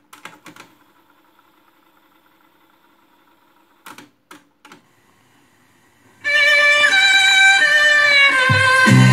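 Cassette playback on a Pioneer CT-W511R double cassette deck: the blank gap between two songs on the tape, faint steady hiss and hum with a few soft clicks. About six seconds in, the next song starts loudly.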